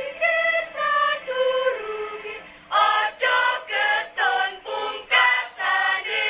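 School choir singing: a few held notes stepping downward, then after a brief pause a run of about seven short, clipped syllables, moving into a held chord near the end.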